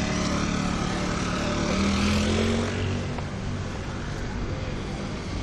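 A passing motor vehicle engine in city traffic: a steady hum that rises a little in pitch about two seconds in, then fades into the street noise.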